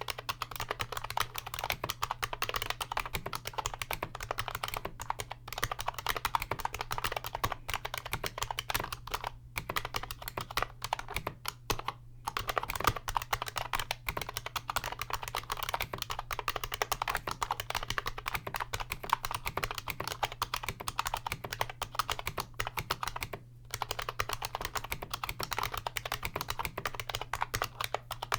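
Fast, continuous typing on a 1994 IBM Model M buckling-spring keyboard whose springs have been greased with silicone: rapid, dense keystrokes with the chunky thock of thick PBT keycaps and no spring ping, broken by a few brief pauses. A steady low hum runs underneath.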